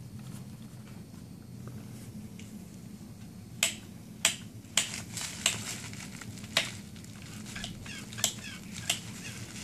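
About a dozen sharp, irregularly spaced ticks, starting a few seconds in, from the front disc brake rotor of a Firefly wheelchair attachment catching on its caliper as the wheel turns, over a steady low hum. The rotor is bent and out of line with the stationary side of the caliper.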